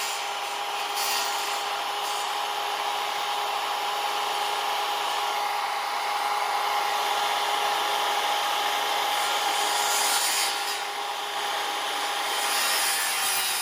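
Power saw running steadily with a constant whine, cutting through the wooden door jamb to notch it around the floor tile.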